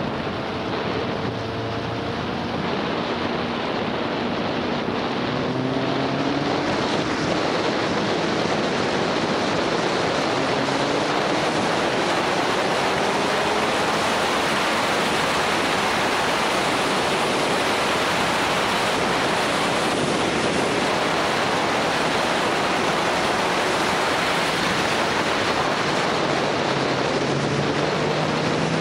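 Heavy wind rush over the microphone of a motorcycle-mounted camera at road speed. Under it the motorcycle engine is faintly heard, its note rising several times as the bike accelerates out of bends, most plainly in the first half.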